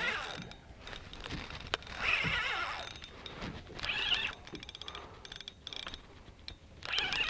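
Fishing reel being cranked to bring in a hooked red snapper, with a run of rapid ticking from the reel about four and a half seconds in.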